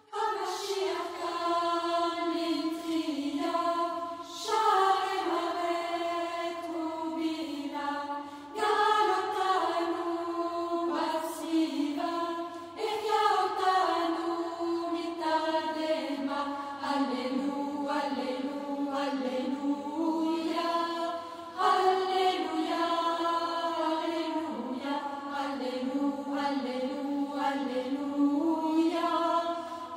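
Background music of sung chant: voices singing long held notes in slow, flowing phrases, a new phrase starting every few seconds.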